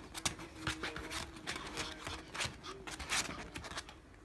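Irregular short scratching and rubbing noises: a long-haired Chihuahua's paws scrabbling and shifting on a sofa cushion while a hand rubs through its fur.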